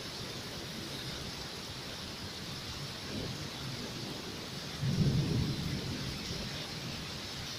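Steady hiss of heavy rain, with a low rumble of thunder about five seconds in that swells and fades over a second or two; a fainter rumble comes just before it.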